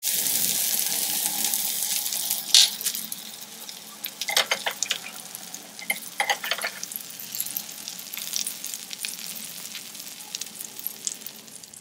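Mutton gola kababs with onions and green chillies sizzling on a hot sizzler plate. The sizzle is loudest at first and slowly dies down, with a few sharp metal clinks against the plate in the middle.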